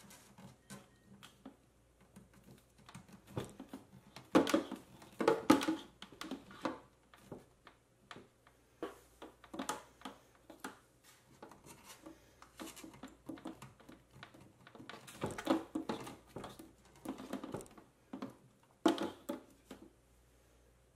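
Handling noise as clear plastic tubing is fitted onto a radiator's hose barbs: irregular clicks, taps and rubbing of tubing and fingers against a plastic cooler. It comes in louder clusters about four to six seconds in, around fifteen seconds and near the end.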